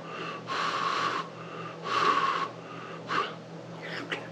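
A man blowing out sharp puffs of breath through his mouth to cool a hot bite of chicken: three long puffs and a short one near the end.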